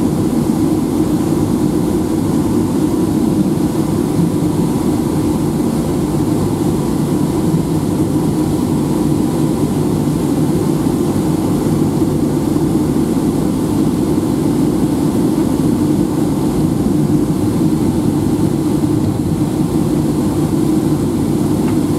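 Steady low rumble inside the cabin of a Boeing 757-200 taxiing after landing: the engines at taxi idle and the airliner rolling along the taxiway.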